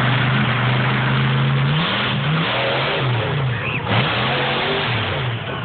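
Monster truck engine running loud: it holds a steady note for about two seconds, then revs up and down several times.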